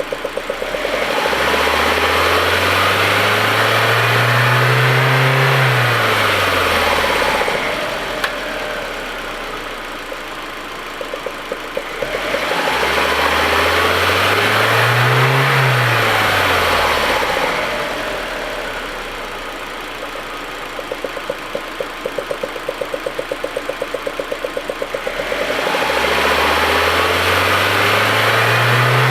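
Audi A4's 1.8-litre turbocharged four-cylinder engine revved slowly up and back down twice, then up again near the end. Between revs it idles with an uneven, stuttering beat: the rough idle and misfire the owner is chasing.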